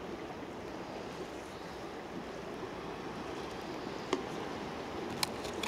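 Sea washing steadily against a rocky shore, with two sharp clicks about four and five seconds in.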